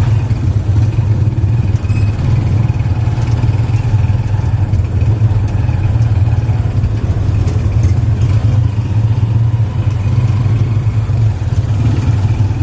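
Engine of a vehicle being ridden in, running steadily with a loud low drone.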